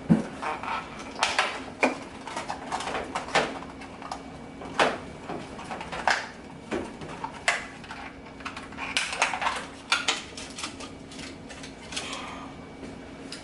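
Plastic clicks and snaps as the tabs on a washing machine's main control board housing are pried open to get at the board's connectors, an irregular string of sharp clicks with handling of the plastic cover between them.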